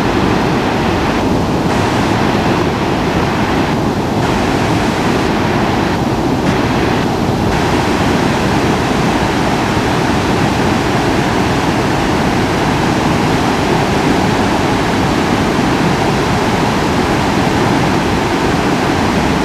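A river swollen to a muddy flood by typhoon rain, its fast water rushing past in a steady, loud, unbroken noise.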